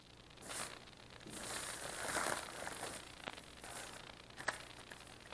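Plastic mailing bag crinkling and rustling as it is opened and the blister-packed item pulled out, with a couple of sharp plastic clicks in the second half, the sharpest about four and a half seconds in.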